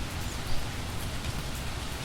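Steady rain falling, a dense even hiss, with one louder drop hitting about a quarter of the way in.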